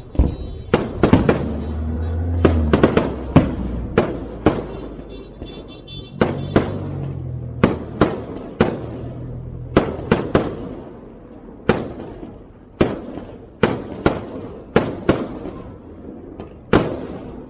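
Aerial fireworks shells bursting in steady succession: more than a dozen sharp booms, about one a second and sometimes in quick pairs, each trailing off.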